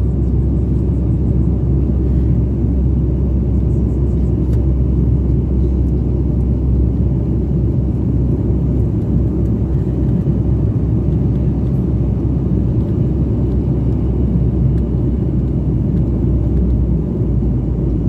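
Steady low rumble inside an airliner cabin in flight: engine and airflow noise with no change in level.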